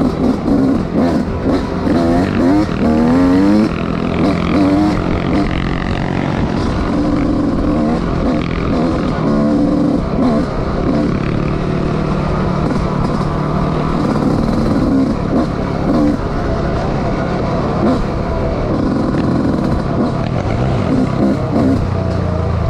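Off-road motorcycle engine running under way, rising and falling in pitch as the throttle is worked, with a run of quick revs about two to four seconds in.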